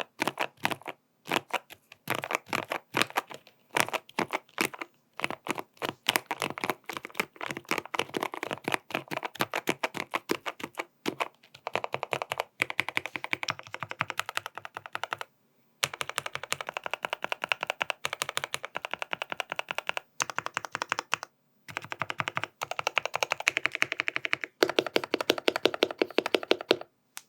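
Fast typing on a GMMK PRO custom keyboard fitted with stock Gateron North Pole switches and Cherry-profile PBT keycaps, tape-modded with switch pads: a rapid, dense stream of keystrokes broken by a few brief pauses.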